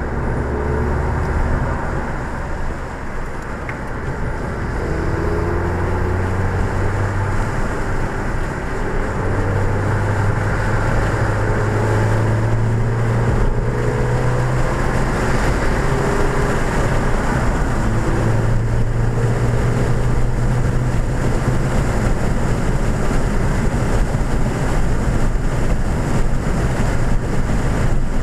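2014 Ford Fiesta ST's turbocharged 1.6-litre four-cylinder engine heard from inside the cabin at track speed. Its drone climbs in pitch through several pulls, with short breaks between them. Steady road and wind noise grows louder in the second half.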